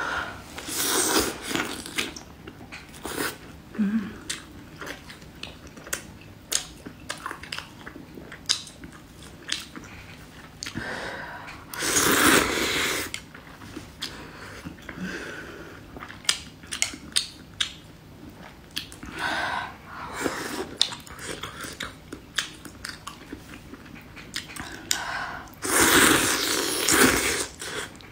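Close-up eating sounds: a person biting and chewing fried meat and noodles from a pot of malatang, with wet chewing and many small sharp mouth clicks. There are a few louder, longer stretches of mouth noise, about twelve seconds in and again near the end.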